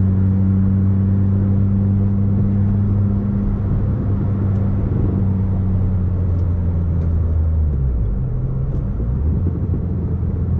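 Chevrolet Corsa 1.4 four-cylinder engine running through an aftermarket sport exhaust with an intermediate and a final muffler, giving a steady low drone. Its pitch wavers and drops about eight seconds in, then holds steady again.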